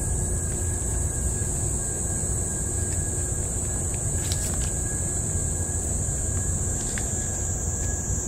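Outdoor ambience: a steady, high-pitched insect drone over a constant low rumble, with a few faint clicks.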